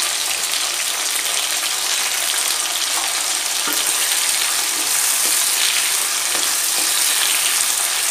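Chopped tomatoes, capsicum and potato pieces sizzling in hot oil in a non-stick kadai, a steady frying hiss, with a few soft scrapes of a wooden spatula stirring them in the middle. It is the start of frying the vegetable base for pav bhaji.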